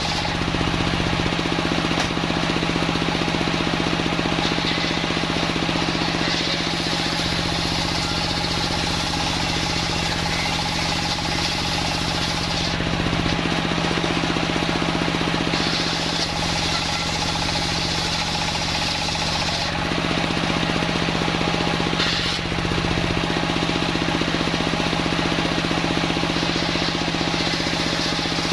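Homemade circular sawmill running steadily with a loud machine drone, its blade sawing wood, the cutting noise swelling several times.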